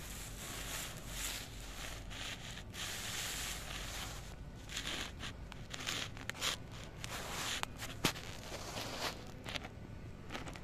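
Irregular rustling and scraping with scattered clicks, and one sharp click about eight seconds in.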